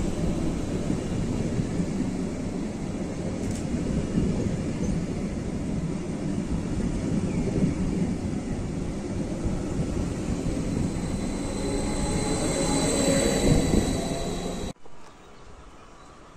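Regional electric multiple unit rolling past along the platform close by, a steady rumble of its wheels and running gear, with a thin whine rising in it near the end. It cuts off abruptly to a quiet background about a second and a half before the end.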